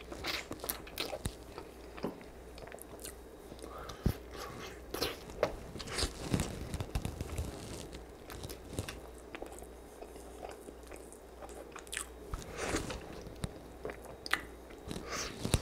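Close-miked eating: chewing and biting meat from honey garlic ribs and rice, with many irregular wet mouth clicks and smacks.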